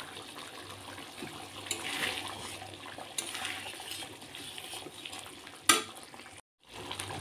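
Thick spinach gravy simmering in a steel pot with soft bubbling, and a spoon stirring and scraping through it. A sharp knock near the end is the loudest sound.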